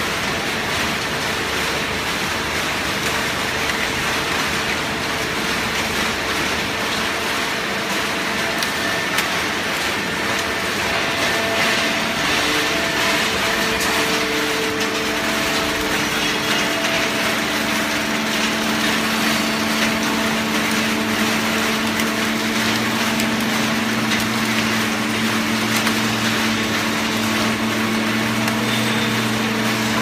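Horizontal hydraulic baler running: the steady hum of its hydraulic power unit over the dense noise of scrap being pressed in the bale chamber. A deeper hum grows stronger about two-thirds of the way through.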